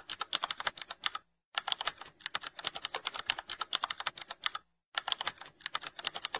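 Computer keyboard typing: rapid runs of key clicks that stop briefly about one and a half and five seconds in. It is a typing sound effect laid under on-screen text being typed out.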